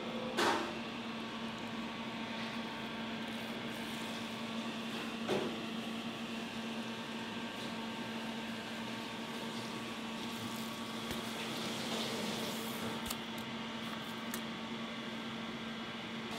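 Steady machine hum with a constant low drone, with a few soft knocks and taps from knife work on a plastic cutting board.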